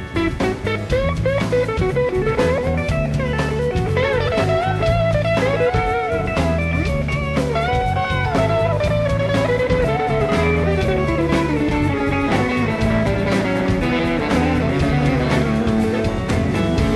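Live blues-rock band playing an instrumental passage: an electric slide guitar lead gliding between notes, over a second electric guitar, bass and drum kit.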